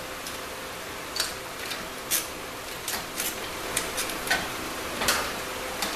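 Steel and friction plates of a 4L80E transmission's intermediate clutch pack clinking against each other and the case as they are worked out by hand. The clinks come as a scattered series of light clicks, some ringing briefly.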